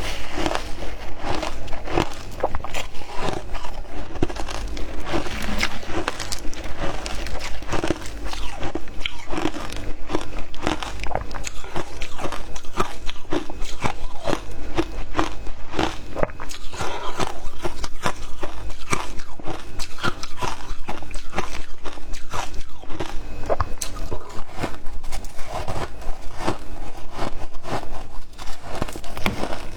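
Frozen matcha ice being bitten and chewed, with dense, irregular crunching and cracking throughout.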